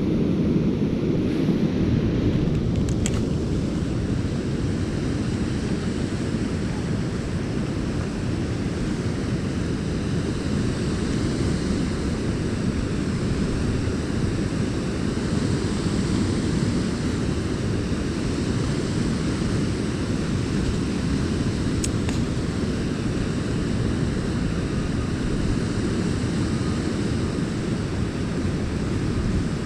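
Steady low rush of water pouring through a river dam, an even, unbroken noise, with a couple of faint clicks.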